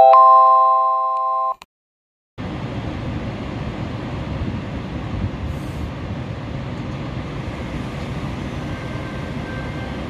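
A short chiming logo jingle, then a moment of silence, then a steady, even noise beside a ChS7 electric locomotive standing at the head of its passenger train.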